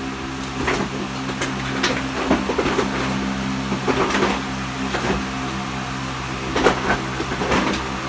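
Steady low electrical hum with a buzz of evenly spaced overtones, picked up through a condenser microphone setup, with irregular small clicks and knocks scattered over it.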